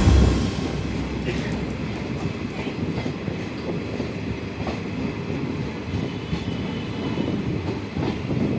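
Passenger train running along the track: a steady rumble of wheels on rails with faint scattered clicks.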